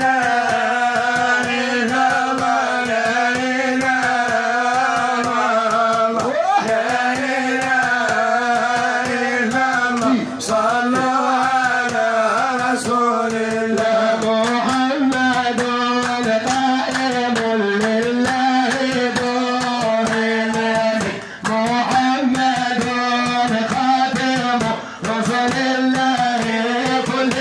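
Men chanting a Moroccan Sufi madih, a devotional praise song to the Prophet, in a long melismatic line over a steady low held note, with rapid percussion strokes throughout.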